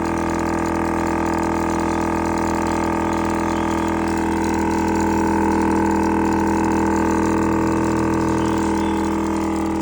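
12-volt air compressor running continuously, a steady hum with several tones, pumping up pressure in an air-suspension system during a pressure test.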